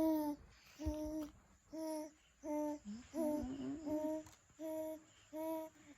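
Short vocal calls at one steady pitch, about nine in a row, each about half a second long with short gaps between them.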